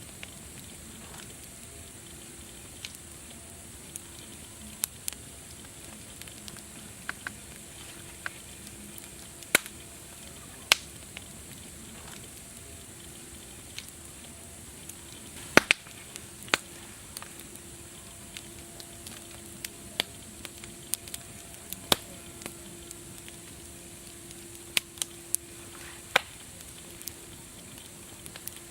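Wood fire crackling: irregular sharp pops and snaps, a few much louder than the rest, over a steady soft hiss.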